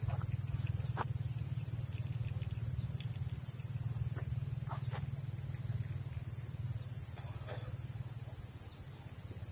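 Chorus of cicadas giving a steady high-pitched buzz with a fast pulsing trill in it, over a low steady rumble.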